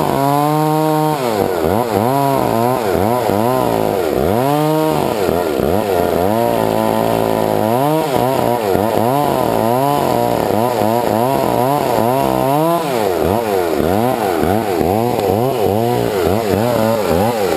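Gas chainsaw cutting through a tree trunk during felling, the engine revving up and dropping back over and over as the chain bites into the wood, with a steadier, lower-pitched stretch about halfway through.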